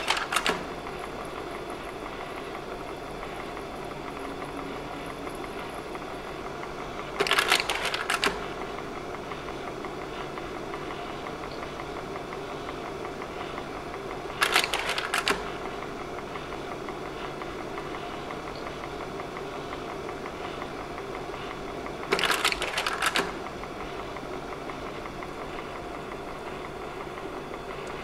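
Slide projector running with a steady fan hum, its slide-change mechanism clattering for about a second each time a slide is changed, four times at even intervals of about seven and a half seconds.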